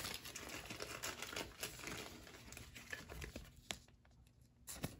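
Faint crinkling of a soft plastic penny sleeve as a trading card is slid into it, with scattered small ticks of plastic and card. The rustling stops for a moment shortly before the end, then a few more clicks.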